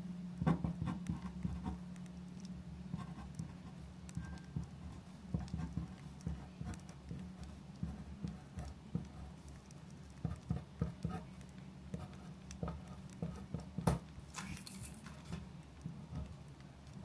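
Writing at a desk: irregular light taps and scratches of a pen on paper over a steady low hum, with one sharper click about fourteen seconds in.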